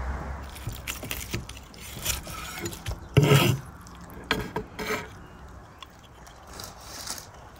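A large kitchen knife cutting through tandoor-roasted lamb ribs on a wooden cutting board: a series of knocks and scrapes of the blade against the board, the loudest a heavy thud about three seconds in.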